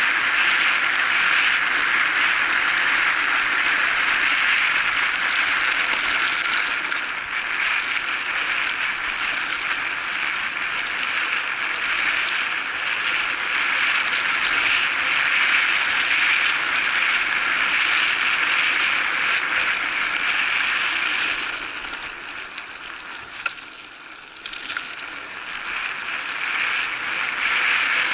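Steady rushing noise of an electric bike being ridden along a forest track: tyres rolling and wind rush. It drops quieter for a few seconds about three-quarters of the way through, then picks up again.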